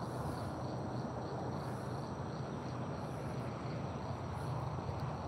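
Steady rushing outdoor noise, with insects trilling faintly and steadily in the background.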